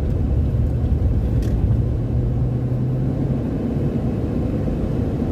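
Steady low drone of a Ford Territory's engine and road rumble heard inside the cabin; the engine note shifts slightly about three and a half seconds in.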